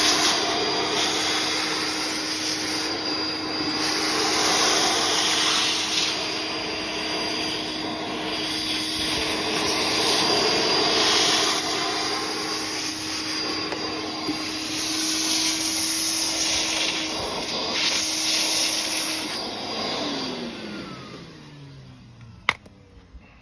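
Vacuum cleaner hoovering up sanding dust and rust flakes from a car's trunk seal channel: a steady motor hum under a rushing suction noise that swells and dips as the nozzle moves. About 20 seconds in it is switched off and the motor winds down with a falling pitch, followed by a single sharp click.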